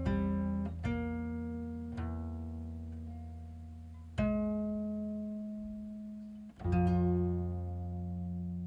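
Background music on a plucked string instrument: slow single notes and chords struck every second or two and left to ring out.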